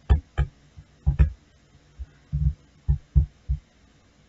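Computer mouse clicking: about ten short, dull clicks at irregular intervals over four seconds.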